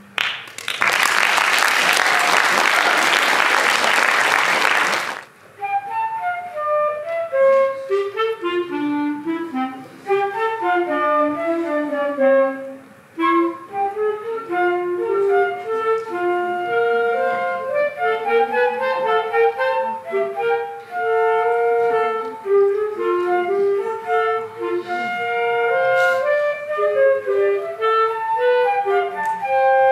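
Applause for about the first five seconds, then a flute and clarinet duet begins, the two playing a lively melody of quick separate notes.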